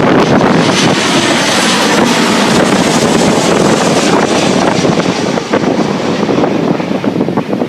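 Strong wind buffeting the microphone, mixed with the engine noise of a passing jet airliner. The sound eases off near the end.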